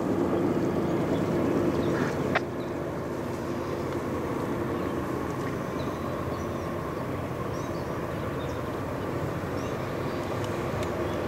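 Steady rumble of a distant approaching CSX freight train's diesel locomotives, with a sharp click about two seconds in and a few faint bird chirps.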